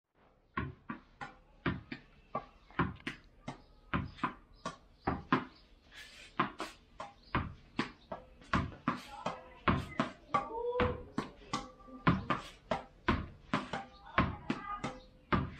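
Tennis ball rallied against a wall with a racket: racket strikes, the ball hitting the wall and bouncing on the tiled floor make a steady series of sharp knocks, about two to three a second.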